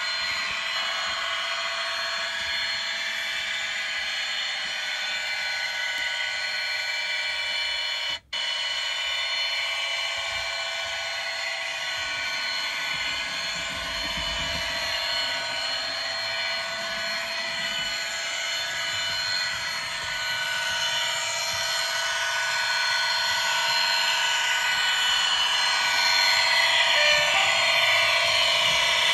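Bachmann Class 57 model diesel locomotive's sound decoder playing a steady diesel engine running sound through its small onboard speaker, growing louder toward the end as the locomotive approaches. The sound cuts out for a moment about eight seconds in.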